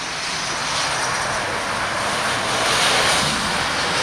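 Embraer E-190's twin turbofan engines on landing, a steady rushing jet noise that swells about three seconds in as the airliner touches down and lowers its nose onto the wet runway.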